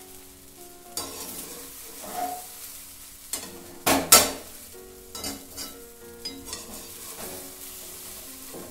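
Steel spoon stirring and scraping sabudana khichdi in a metal kadhai as it dry-roasts on the gas, with a soft sizzle. Irregular scrapes and knocks of the spoon on the pan; the loudest is a pair of sharp knocks about four seconds in.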